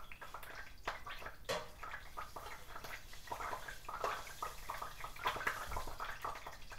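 Hot cooking oil crackling and popping in a lidded pot, a fast, irregular run of small pops: the oil is hot enough to fry in.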